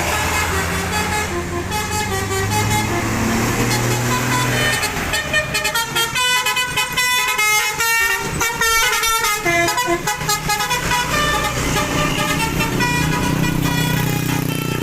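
Multi-tone telolet bus horn playing a tune of quickly changing notes, fastest in the middle, over a low engine rumble.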